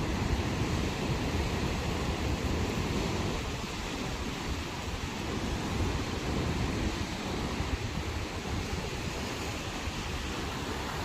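Sea waves washing onto the shore in a steady rush of surf that swells and eases, with wind rumbling on the microphone.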